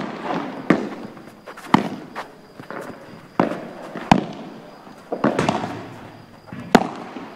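Padel ball being hit by rackets and bouncing during play: a series of sharp pops at uneven spacing, roughly one a second, with scuffing steps between them.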